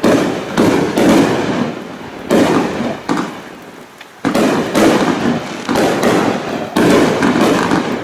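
Jet Fuel 48-shot large aerial finale set cakes firing: a run of heavy, sudden shot blasts, each trailing off into crackle, coming at uneven intervals about once a second.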